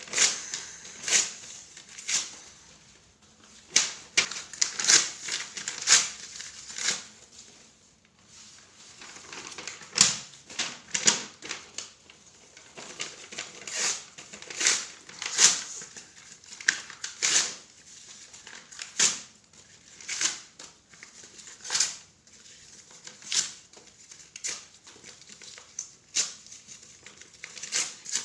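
Paper being ripped in a series of short, quick tears, roughly one a second and unevenly spaced, with a short lull about a third of the way through.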